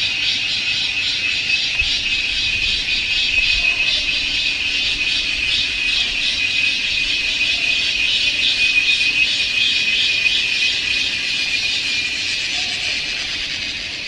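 Cicadas calling in chorus: a loud, continuous, shrill buzz with a rapid pulsing texture, easing slightly near the end.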